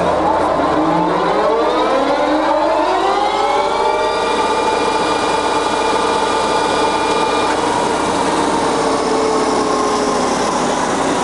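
Jessey Major centre lathe's headstock spinning up to its 1210 rpm speed setting: a mechanical whine of several tones that rises in pitch for about four seconds, then runs steady.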